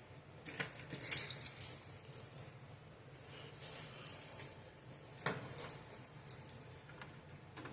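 Keys jangling lightly in short scattered clinks and rattles, mostly in the first couple of seconds and again about five seconds in.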